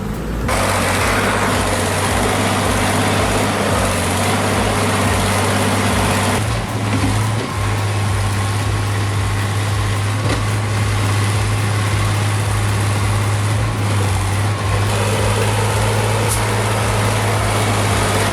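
A large engine running at a steady speed, with a strong low hum and the noise of machinery over it; the sound changes character about six seconds in.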